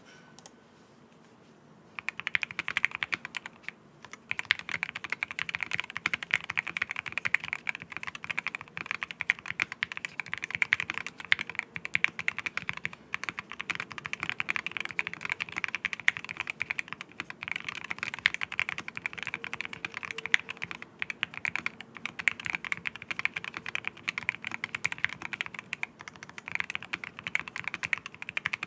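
Fast typing on a QK60 mechanical keyboard fitted with Akko Rosewood linear switches, an aluminium plate, full foam and ePBT PBT keycaps: a dense run of deep, thocky keystrokes. It starts about two seconds in, with a short pause a couple of seconds later.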